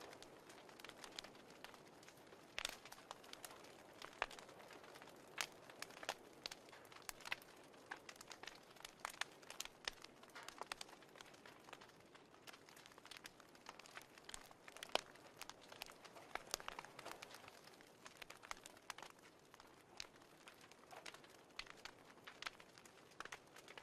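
Faint wood fire crackling: irregular sharp pops and snaps over a soft hiss.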